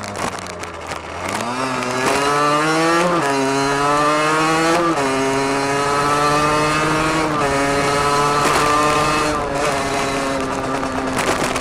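Derbi Senda DRD's 50 cc two-stroke engine with a Turbokit sport exhaust pulling hard through the gears. Its pitch climbs, drops sharply at gear changes about 3 and 5 seconds in, then holds at a steady cruise and eases off slightly near the end.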